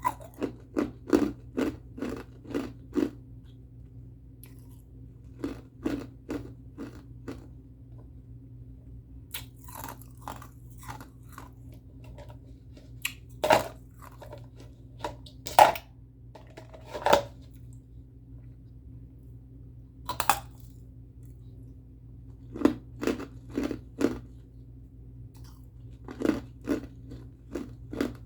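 A person biting and chewing ice, loud crunches coming in quick runs of several bites with pauses of a few seconds between runs.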